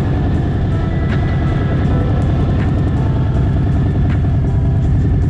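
Steady vehicle engine rumble with wind and road noise, loud and unbroken.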